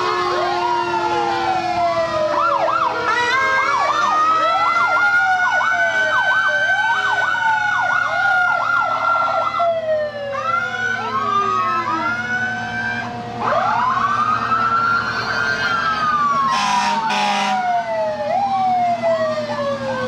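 Several fire engine sirens sounding at once, with slow wails rising and falling and overlapping one another. From about 3 to 10 seconds in, one siren switches to a fast warbling yelp, and two short blasts come about three quarters of the way through.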